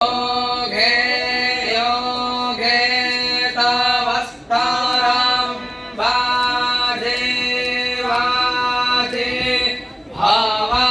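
A group of voices chanting in unison in a sung, mantra-like style on a held pitch, in phrases of about a second each. There are brief pauses about four and a half and ten seconds in.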